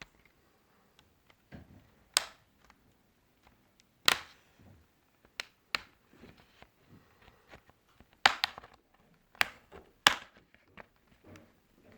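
Irregular sharp clicks and snaps of hard plastic and small tools while an HP ProBook 430 G5 laptop is being taken apart, with a cluster of quick snaps in the second half.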